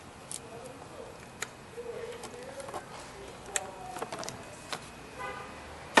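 Scattered light clicks and taps of hands working in a car's engine bay, with a short faint pitched tone about five seconds in. The engine is not running.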